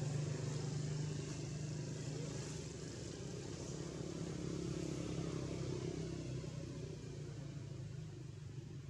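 A motor vehicle's engine running with a steady low hum that grows slowly fainter over the last few seconds.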